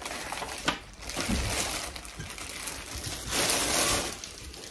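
Clear plastic wrapping crinkling and rustling as a pan is pulled out of its bag, with a short knock near the start.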